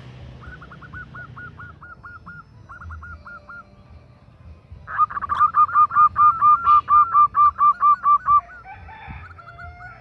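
Zebra dove (perkutut) cooing in quick, evenly spaced notes, about four a second: a fainter run in the first few seconds, then a loud run of about fourteen notes from about five seconds in. The call is that of a female calling for a male.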